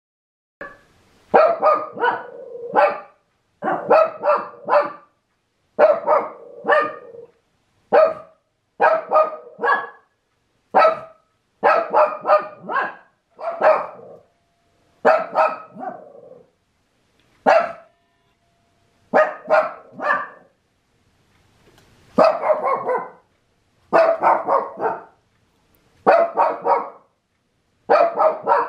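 A dog barking in quick bursts of three or four barks, a burst about every two seconds, with one short pause past the middle. It is alarm barking at moose.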